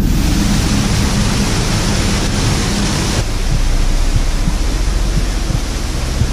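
Loud, steady rush of a waterfall pouring into a pool. About three seconds in, it changes to a duller, steadier rush of water with a few soft knocks.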